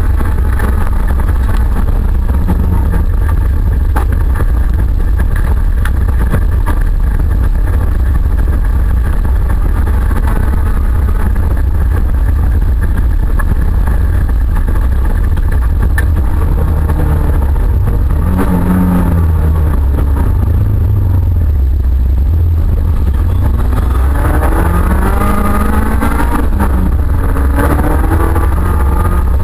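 Autocross race car's engine driven hard, heard from inside the stripped, roll-caged cabin, loud over a heavy low rumble. Its pitch rises and falls several times with throttle and gear changes, most plainly in the last few seconds.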